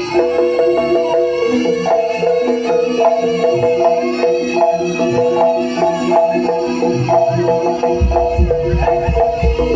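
Live Javanese gamelan music accompanying a jaranan dance: metal keyed instruments strike repeated notes over quick percussion. A deep low sound comes in about eight seconds in.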